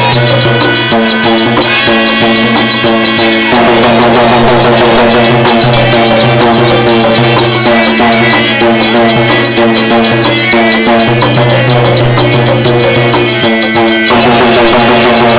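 Live folk-theatre accompaniment: loud music with a steady held drone under quick drum strokes and rattling percussion.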